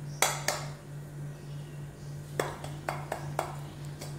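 Stainless steel mixer-grinder jar clinking as it is handled over a plate: two sharp clinks near the start, then three about half a second apart, over a faint steady low hum.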